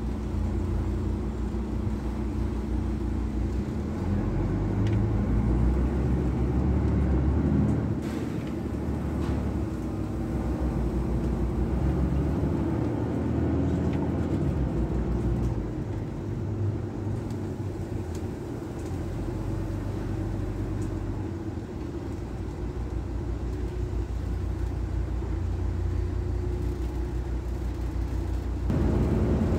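Cabin noise inside a moving articulated city bus: a steady engine and drivetrain hum with tyre and road rumble, swelling and easing a few times. The sound shifts suddenly about a second before the end.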